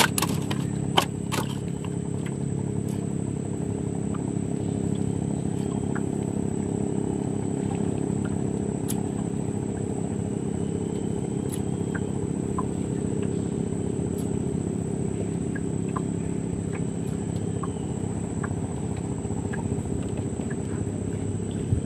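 A steady low mechanical hum, like a motor running, with a constant high-pitched insect drone over it. A few sharp clicks come in the first second and a half.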